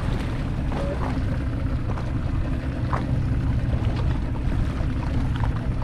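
Steady low rumble aboard a small open fishing boat at sea, with a few faint light taps.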